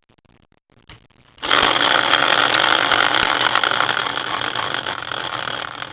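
Prize wheel spinning with a dense, rapid rattle that starts abruptly about a second and a half in and slowly fades.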